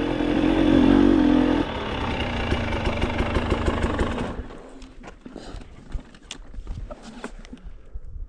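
KTM 300 two-stroke dirt bike engine running steadily on the trail. About four seconds in, the engine sound falls away, leaving faint scattered knocks and rattles.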